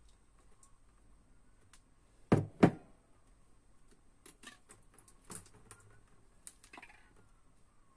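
Two sharp knocks in quick succession about two seconds in, as a glass jug is set down on the desk, followed by lighter clicks and taps of a thin plastic card being handled against the rim of a full drinking glass.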